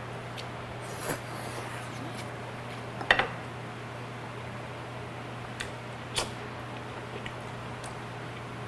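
Chopsticks clicking against a plate and sauce dish during eating, with a loud double click about three seconds in and a few lighter ones around it, between quiet chewing sounds. A steady low hum runs underneath.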